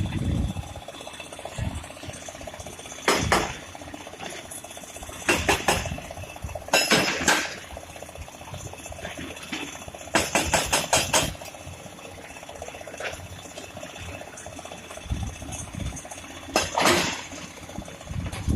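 Excavators working in a river: a steady engine drone broken by five or six bursts of sharp metallic clanking and knocking, typical of buckets and tracks striking rock.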